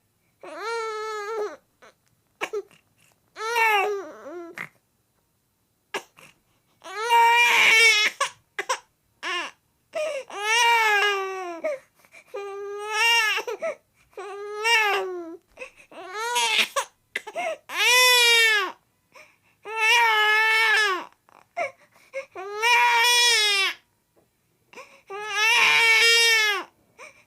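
A baby crying: a long string of wailing cries, each about a second or so long, with short breaks for breath between them.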